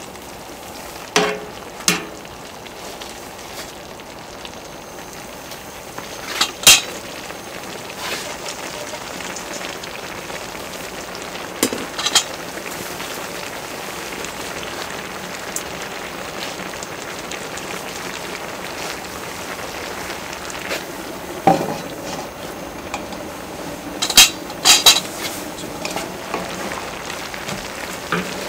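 Kimchi and pork stew sizzling and bubbling on a cast-iron cauldron-lid griddle, a steady hiss, with metal tongs and utensils clacking against the lid now and then. The sharpest clack comes about a quarter of the way in, with a quick pair near the end.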